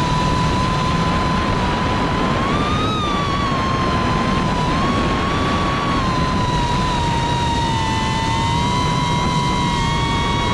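QAV cinewhoop FPV quadcopter's motors and ducted propellers whining steadily over a constant rushing prop wash, the pitch wavering up and down with throttle. Past about eight seconds the whine splits into two close tones as the motors run at different speeds.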